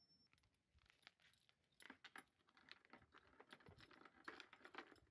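Faint, irregular small clicks and light rattling of hands handling the motorcycle near the ignition, thickest about two seconds in and again near the end.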